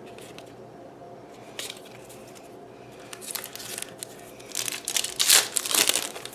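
Foil trading-card booster pack crinkling and tearing as it is opened, loudest in the last two seconds. Before that it is quiet, with a light click of cards being handled about one and a half seconds in.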